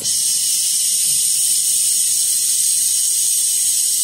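Handheld fiber laser welder firing on an aluminium joint: a loud, steady, high-pitched hiss that starts abruptly as the beam comes on.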